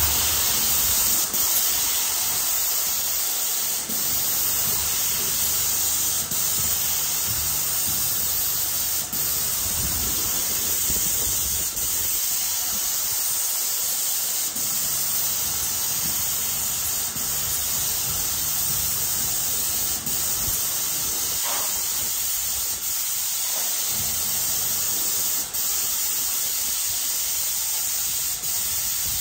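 Airless paint sprayer gun with a 517 tip atomising mist-coat paint onto a ceiling: a steady hiss that dips briefly now and then.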